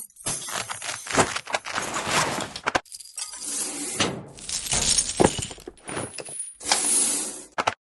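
A rapid run of short, unrelated foley sound effects of everyday objects, cut one after another with brief gaps between them, full of clatter, clinks and impacts.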